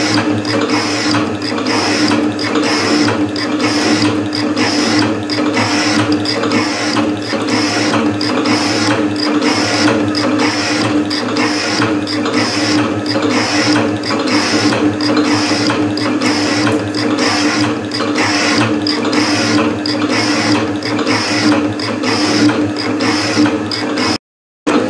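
Metal shaper taking a roughing cut in hot rolled mild steel: the ram strokes back and forth in an even, repeating rhythm over the steady hum of the machine, the high-speed-steel tool cutting and curling off chips. The sound cuts out briefly near the end.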